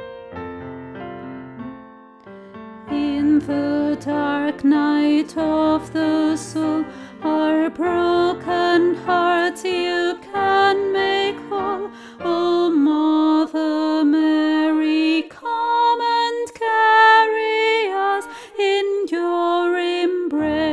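Slow choral music. Held accompaniment chords sound for the first few seconds, then voices come in about three seconds in, singing a slow, legato melody with vibrato over the accompaniment.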